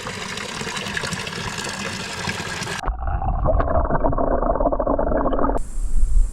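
Field recording of running water that cuts abruptly about three seconds in to a louder, muffled, bass-heavy water sound. Near the end it cuts again to the steady high chirring of crickets.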